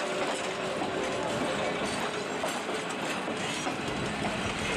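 Passenger coaches rolling past on steel wheels, a steady rumble of wheels on rail with clickety-clack from the rail joints.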